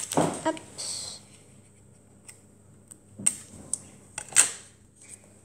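Sticky tape pulled off its roll in short rasping strips: a brief one about a second in, then two sharper pulls later, with small clicks of the roll being handled.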